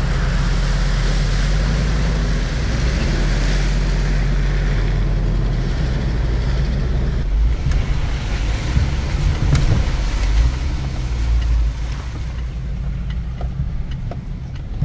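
Hummer H3 driving through a muddy puddle, water sloshing around its tyres over the engine's low rumble. About seven seconds in, this gives way to the noise inside the SUV's cabin as it rolls down a gravel trail: a steady road rumble with a few knocks from bumps.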